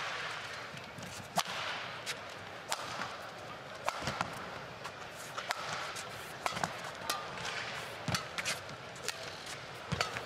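Badminton rally: sharp cracks of rackets striking the shuttlecock, about one a second, with a few dull thuds of players' feet on the court. Crowd noise dies down near the start.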